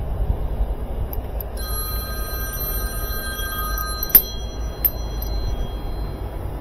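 Mobile phone ringing, a chord of steady electronic ringtone notes coming in about a second and a half in, over a low steady rumble. A sharp click about four seconds in is the loudest sound.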